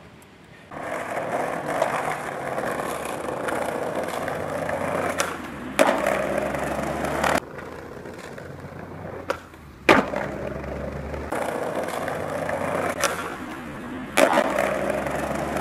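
Skateboard wheels rolling over brick paving stones, with the sharp clacks of the board popping and landing several times.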